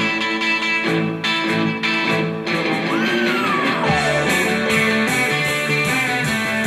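Rock music with electric guitar; about three seconds in a guitar note bends up and slides down, and a steady beat comes in for the second half.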